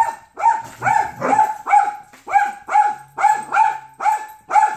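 Small dog barking rapidly and repeatedly, high-pitched and really loud, about two to three barks a second without a break.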